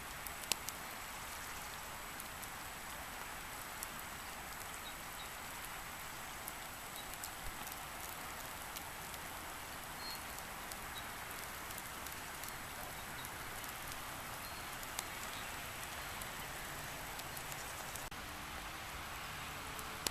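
Rain falling steadily, a continuous hiss with scattered sharp drop ticks.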